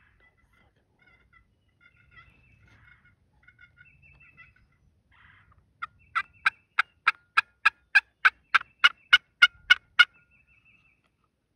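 A series of about fourteen loud turkey yelps, about three a second, growing louder as they go, in the second half.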